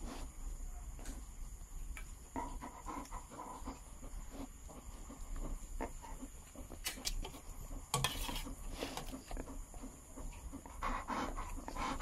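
A rottweiler panting in rhythmic breaths close to the microphone, with a few sharp clicks and a louder burst about eight seconds in.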